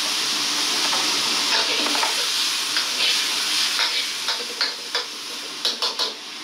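Bullfrog pieces sizzling in hot oil in a wok, stirred with a metal ladle that scrapes and clicks against the pan. The sizzle drops a little after about five seconds, and a few sharp clinks come near the end.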